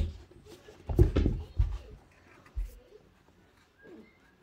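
A sharp knock, then a cluster of dull thumps and rustles about a second in, with another thump a little later.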